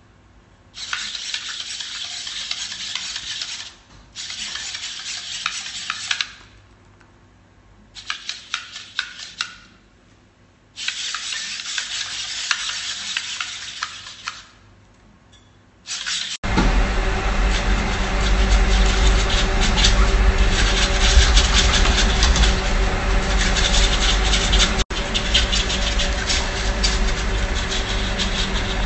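Mini Pupper robot dog's small servos and feet working as it walks and moves: hissing, scuffing bursts of a few seconds with short pauses between them, then about halfway through a louder, continuous run with a low hum underneath.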